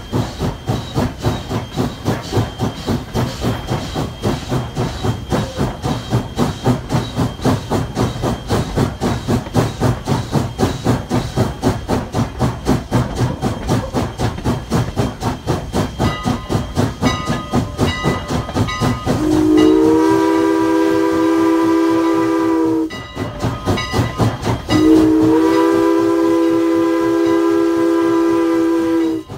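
Steam locomotive No. 89 working steadily, its exhaust beating about four times a second. About 19 s in, its Pennsylvania Railroad three-chime whistle sounds one long chord of about four seconds, then a second long blast after a short gap: the opening long-long of a grade-crossing signal.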